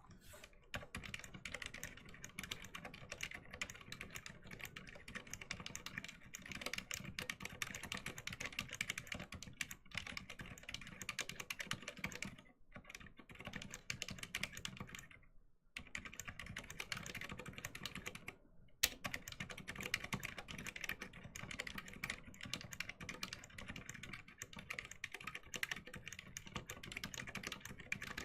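Fast continuous typing on a Varmilo V80 tenkeyless mechanical keyboard with Cherry MX Silent Black linear switches in an aluminum case, heard up close as a dense patter of soft key presses. It pauses briefly a few times, and one sharper click stands out about two-thirds of the way through; the spacebar stabilizer bar is clicking.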